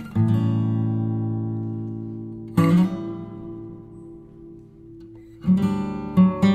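Background music on acoustic guitar: two strummed chords, each left to ring and fade, then a quicker run of strums near the end.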